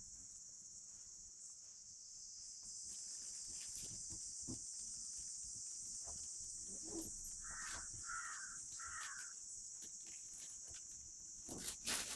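Steady high-pitched drone of crickets. A bird calls three times in quick succession about eight seconds in, and near the end there are sharp crunches as the dog bites into a raw carrot.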